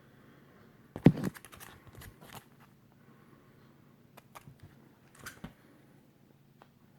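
Comic books in plastic bags being handled: scattered crinkles, rustles and light clicks, with one sharper, louder rustle or knock about a second in.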